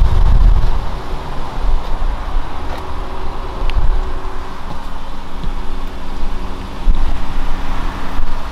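Uneven low rumble of wind on the microphone over a steady low hum of outdoor traffic.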